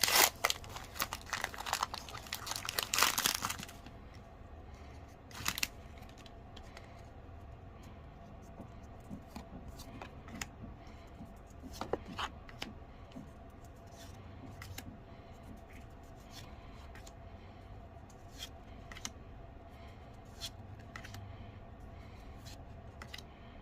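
Foil booster-pack wrapper of a Pokémon trading card pack being torn open and crinkled for about the first four seconds, then faint scattered clicks and rustles of cards being handled.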